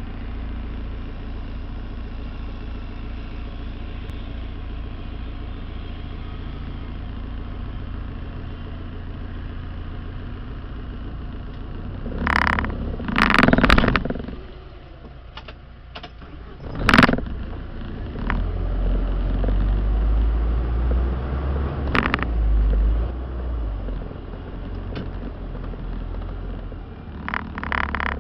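A vehicle's engine running with a steady low rumble, heard from inside a car driving over sand. Loud jolts and rattles break in near the middle, about three seconds later, again a few seconds after that and near the end, and the low rumble grows heavier for several seconds after the middle jolts.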